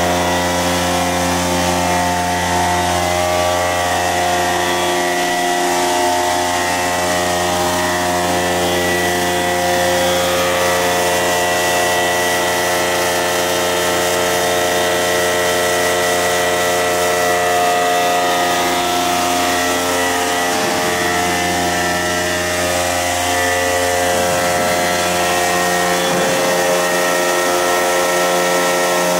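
FPEC vacuum paddle blender running on test: the electric drive motors and pumps give a steady machine hum with several steady tones above it.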